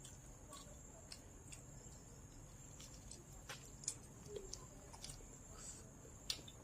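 Faint eating sounds: irregular soft clicks and smacks of chewing, with a sharper click about four seconds in and another near the end, over a faint steady high whine.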